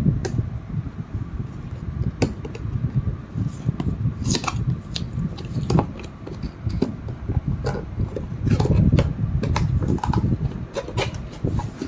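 A cardboard product box being opened and handled: rubbing and scraping of cardboard with many scattered sharp clicks and taps, over a steady low rumble.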